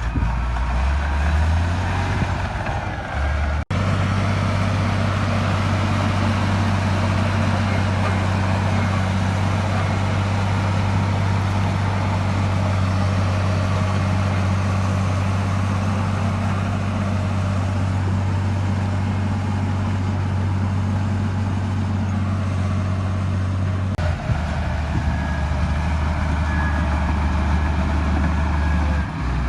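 Heavy diesel earthmoving machinery running steadily with a deep, even engine drone. The engine note shifts at two abrupt breaks, one a few seconds in and one near the end.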